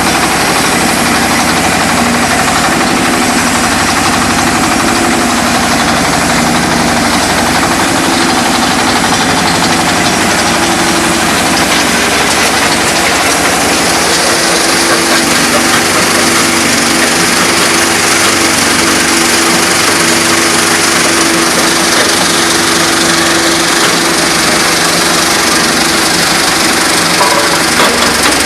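Stone crusher machine running steadily: a loud, continuous machine noise with a steady hum and a dense rattling hiss over it.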